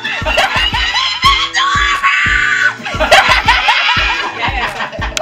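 Background music: a track with a heavy, steady bass beat and a bass line stepping between held notes, with vocals over it.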